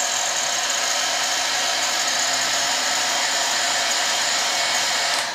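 Electric heat gun running steadily, a blowing hiss with a faint motor hum, shrinking heat-shrink tubing over crimped wire ferrules. It switches off just before the end.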